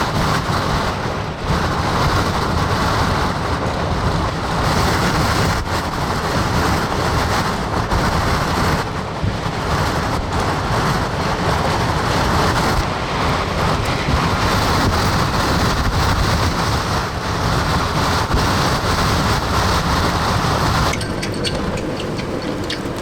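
Extreme wind howling in strong gusts, buffeting the microphone with a deep rumble, while a flag on a pole whips and snaps in it. Near the end the hiss thins and sharper snapping stands out.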